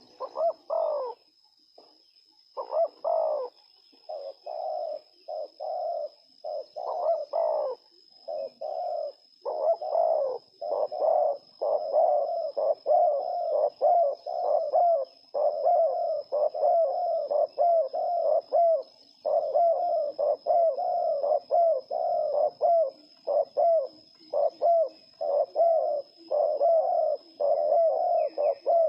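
Spotted dove cooing over and over: a short call right at the start, a pause, then an almost unbroken run of quick, repeated coos.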